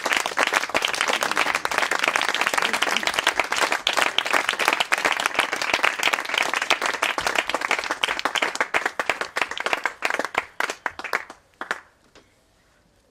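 A small audience applauding, a dense patter of hand claps that thins out and stops near the end.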